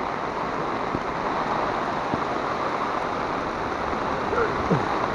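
Heavy rain pouring down steadily, with runoff water rushing across a flooded street.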